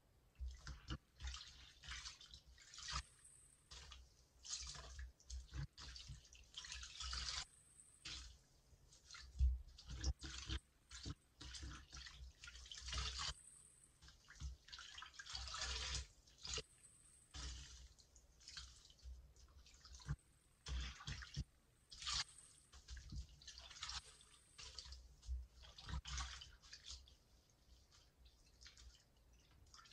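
Wet foam sponges squeezed and kneaded in soapy water in a sink, giving irregular squishing and dripping and splashing of water, in short bursts.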